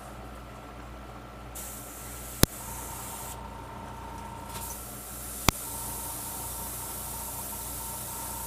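Airbrush spraying paint in two trigger-pulled bursts, a short one about one and a half seconds in and a longer one from about four and a half seconds on, each a hiss of air that starts and stops abruptly. Two sharp clicks, about two and a half and five and a half seconds in, are the loudest sounds.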